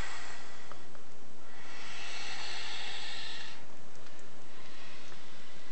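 Python (Python molurus) hissing as it breathes out: a fainter hiss fades in the first second, then a stronger airy hiss lasts about two seconds.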